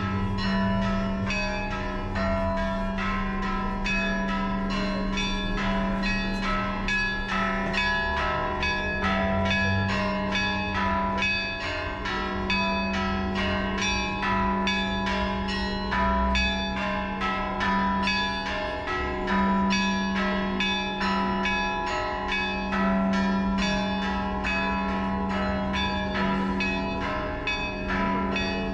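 Orthodox church bells ringing a continuous festive peal during a cross procession. Smaller bells are struck several times a second in a running pattern over a deep bell that keeps sounding underneath.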